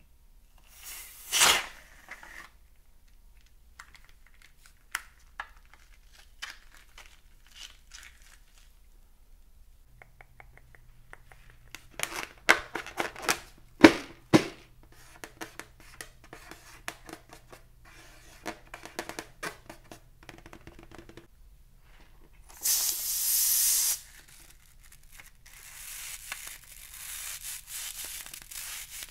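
Rubber balloons being handled and cut open with scissors: a loud sharp snap about a second and a half in, scattered clicks, then a run of sharp clicks and taps in the middle. Near the end comes a loud hiss lasting about a second, followed by a softer crinkling rustle.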